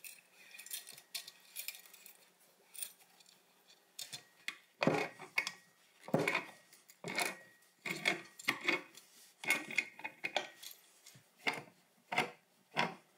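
Threaded brass pipe fittings, wrapped in Teflon tape and pipe dope, being tightened with a pipe wrench and tongue-and-groove pliers: quiet metal handling at first, then from about five seconds in a run of short, sharp metallic sounds, about one a second, as each turn of the tools bites.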